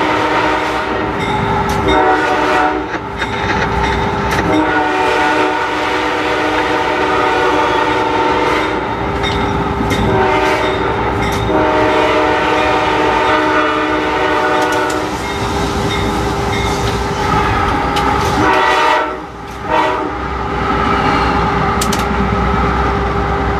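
Locomotive air horn heard from inside the cab, sounding a series of long, loud chord blasts separated by brief breaks, over the steady running noise of the moving locomotive.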